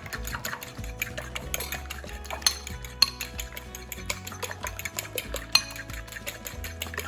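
Eggs and milk being beaten in a bowl: a utensil clicks and scrapes rapidly against the bowl, with a few louder taps. Background music plays underneath.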